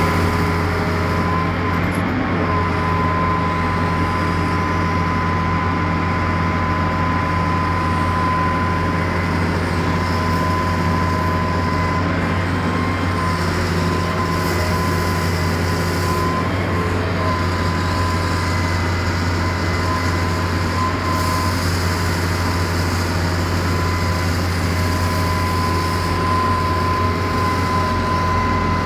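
Hitachi ZX200 hydraulic excavator running steadily: a low diesel drone with a steady high-pitched whine over it as the machine works its boom.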